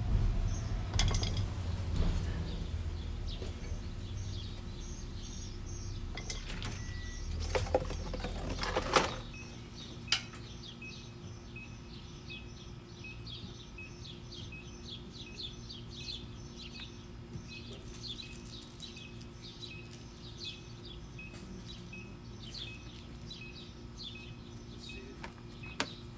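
A small bird chirping over and over, short high notes about twice a second, through the second half. Before that, a low rumble with a few sharp metallic clicks and clinks, as a screwdriver works the hose clamp on the oil drain hose.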